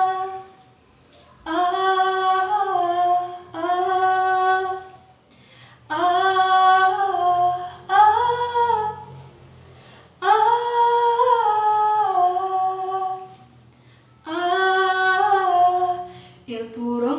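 A teenage girl singing solo without accompaniment: a run of about six wordless, sustained phrases on an open vowel, with short pauses for breath between them.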